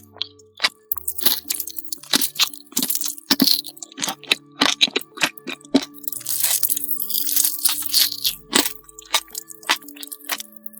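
Crisp cracking and crunching of chocolate being bitten and chewed, a few sharp snaps a second, over background music with a simple low melody.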